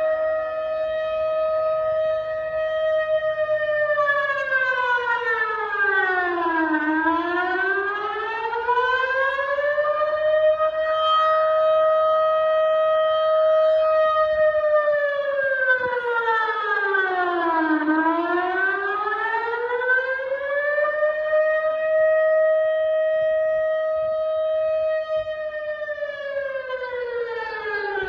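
Civil defence warning siren sounding during a test run. It holds one high tone for several seconds, then falls and rises again in a slow wail, twice, and begins to fall once more near the end.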